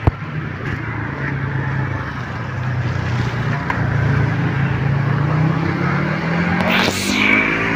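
A motor vehicle's engine running steadily, its pitch rising gently toward the end as it speeds up. A short rushing noise swells about seven seconds in.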